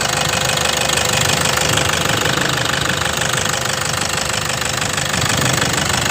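Diesel car engine running steadily with its knocking clatter, during an engine purging (carbon-cleaning) treatment.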